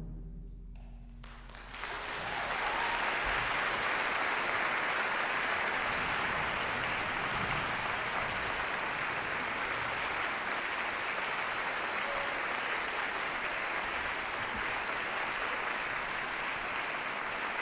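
A concert band's last chord dies away in the hall's reverberation. Just under two seconds in, the audience breaks into steady applause.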